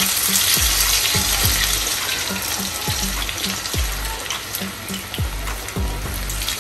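Raw potato wedges deep-frying in hot refined oil in a small kadai: a vigorous, steady sizzle and crackle of bubbling oil as the moisture in the freshly added raw wedges boils off.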